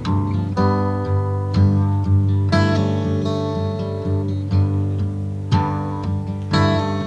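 Outro music: a strummed acoustic guitar with a steady bass line, changing chords about once a second.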